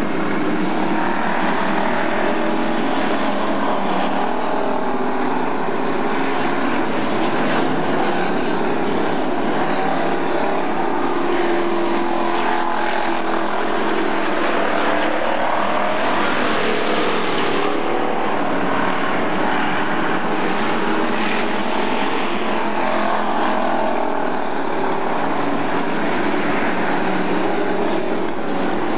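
A pack of dirt-track street stock cars racing, their engines running together in a steady loud drone that wavers up and down in pitch as the cars circle the oval.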